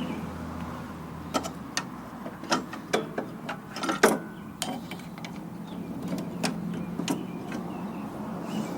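Metal clanks and clicks of hand work on a snowblower's belt and pulley as the belt is pried free: a quick run of sharp knocks, the loudest about four seconds in, then two more later on, over a steady low hum.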